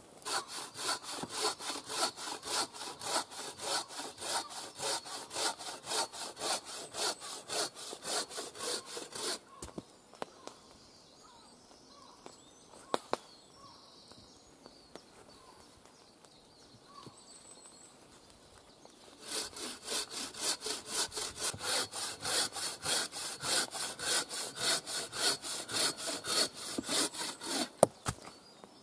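Bahco 21-inch bow saw cutting through a log with even push-and-pull strokes, about two a second. The sawing stops about nine seconds in, with a single click in the pause, and starts again about ten seconds later. The owner thinks the blade could do with replacing.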